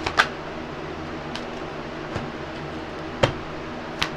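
Room tone: a steady background hum with a few faint clicks and one sharper tap about three seconds in.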